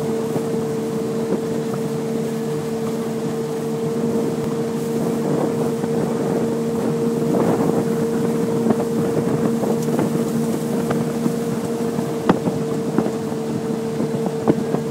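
Airboat engine and propeller running at a steady drone, with a few short sharp knocks in the second half.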